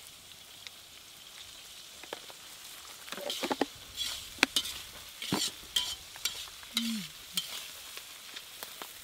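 Onions frying in hot oil in an iron kadai, sizzling faintly and steadily, while a metal spatula stirs them; from about three seconds in the spatula scrapes and knocks against the pan in a run of sharp clicks.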